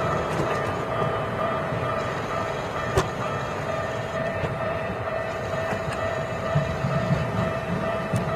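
Japanese level-crossing alarm ringing steadily over the low rumble of a Keikyu 1500-series electric train passing the crossing. There is a sharp click about three seconds in, and the rumble grows toward the end.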